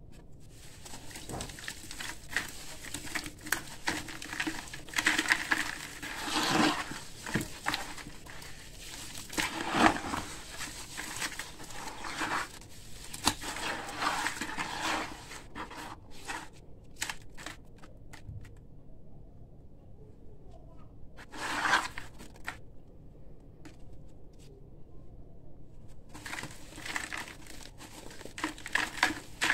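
A soaked chunk of dusty concrete being squeezed and crumbled by hand in water, making wet, gritty crunching and crackling. The crunching comes in bursts, with a quieter lull about two-thirds of the way through.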